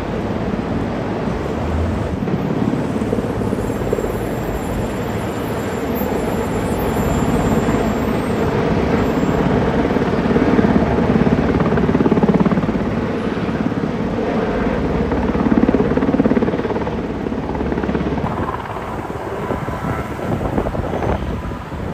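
Heavy-lift helicopter hovering close overhead with a load on a long cable: steady rotor and engine noise that swells and ebbs, easing a little near the end.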